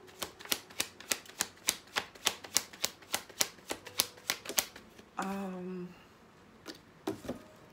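A tarot deck shuffled by hand: a rapid run of card taps and slaps, about four to five a second. After a short hum of voice about five seconds in, a few more card taps sound near the end.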